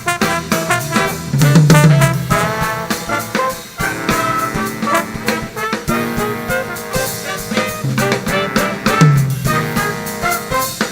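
Jazz band playing with brass, trumpet and trombone over a drum kit.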